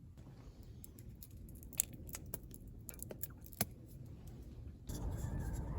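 A scatter of light clicks and clinks, like small items being handled. About five seconds in, a louder steady noise comes in.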